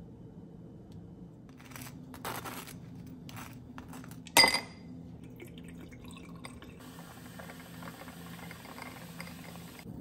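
Kitchen handling sounds: a few soft knocks, then one sharp, ringing clink of tableware about four and a half seconds in, the loudest moment. A steady high hiss begins near the end.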